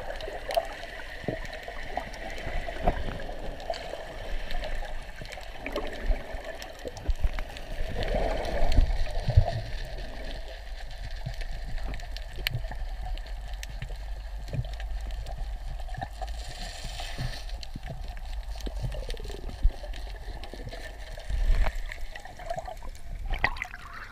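Underwater sound picked up by a GoPro in its housing: a muffled wash and gurgle of moving water, with many scattered sharp clicks and a few louder surges. Near the end the camera breaks the surface and the sound changes.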